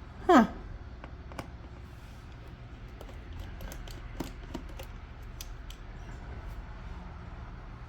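A short falling vocal sound just after the start, like a groan or sigh, then faint scattered clicks and taps of small tools and screws being handled on the laptop.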